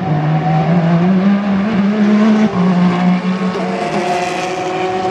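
Peugeot 9X8 Le Mans Hypercar's 2.6-litre twin-turbo V6 accelerating hard out of a corner. Its note climbs, then drops at an upshift about two and a half seconds in and holds steady.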